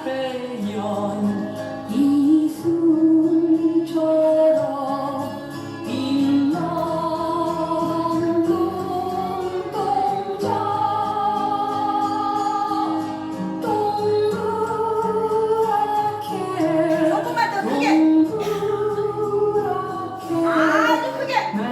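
A song with a sung vocal line over instrumental backing, held notes moving from phrase to phrase.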